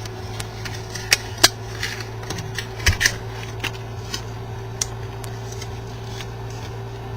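Light clicks and taps of cardboard and plastic packaging being handled as a keyboard box is unpacked, a few sharper knocks in the first three seconds, over a steady low hum.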